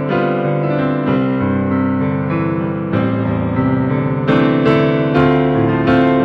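Piano-voiced keyboard playing a slow passage of sustained chords, with new chords struck about once a second.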